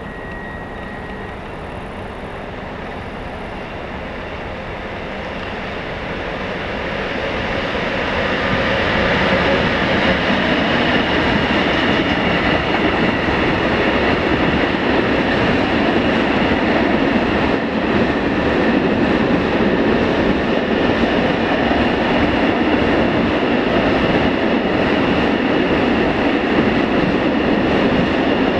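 Long freight train of open coal wagons rolling past. The running noise builds over the first several seconds as it draws near, then holds steady and loud as the wagons go by.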